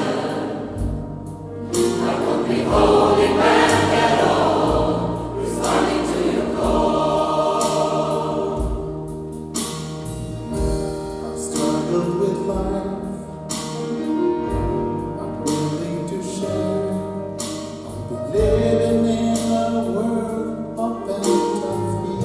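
Gospel choir singing with band accompaniment, drum hits marking the beat.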